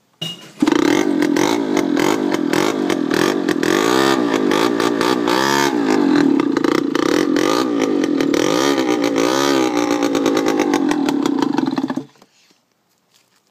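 Mini quad's small air-cooled single-cylinder engine kick-started, catching almost at once. It runs with the throttle blipped up and down for about eleven seconds, then cuts off suddenly.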